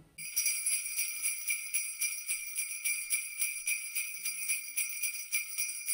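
Sleigh bells jingling in a steady shaking rhythm, about five shakes a second. They start suddenly at the cut.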